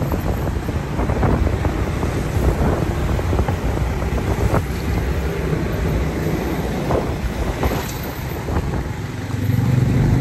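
Wind buffeting the microphone on a moving motorcycle, with the motorcycle running underneath.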